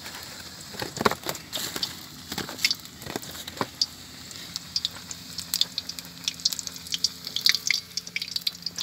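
A piece of fried chicken reheating in a little hot oil in a wok, sizzling with a steady run of small crackles and pops.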